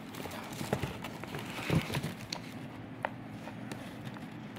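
Scattered light taps and clicks of hands handling a synthetic football boot, turning it over and folding back the tongue, over a faint steady hum.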